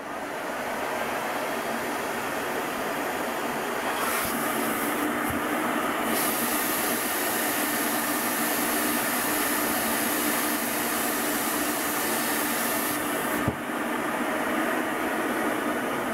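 Hitachi Koki RP35RYD2 dust collector switching on and running with a steady rushing suction noise and a faint hum. There is a single short knock about thirteen seconds in.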